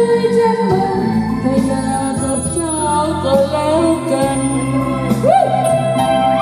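Loud music with a singer's voice over steady low accompaniment.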